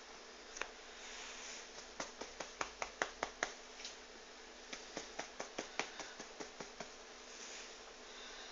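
A quick series of sharp clicks, about five a second, in two runs with a short pause between, over a faint hiss.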